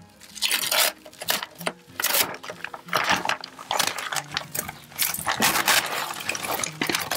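Plastic shrink wrap being peeled off a cured fiberglass-and-epoxy hull patch, crinkling and crackling in irregular bursts. Low sustained music notes sit underneath.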